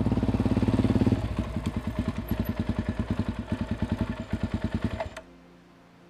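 Suzuki DR-Z400's single-cylinder four-stroke engine. It runs a little louder for about the first second as the bike pulls in, then idles with an even beat of firing pulses, about ten a second. It is shut off and stops abruptly about five seconds in.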